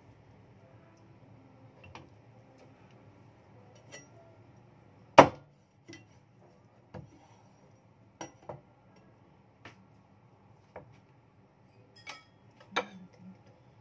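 A cleaver chopping on a thick wooden chopping board while cutting up a whole raw chicken: one loud chop about five seconds in, then lighter knocks and clinks roughly a second apart, with another strong knock near the end.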